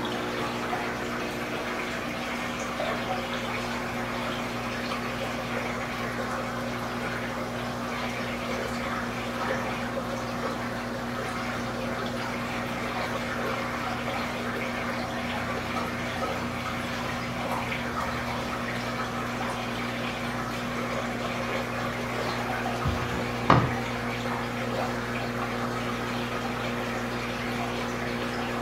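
Aquarium filtration running: a steady rush and splash of water with a constant pump hum underneath. A single sharp knock about three quarters of the way through.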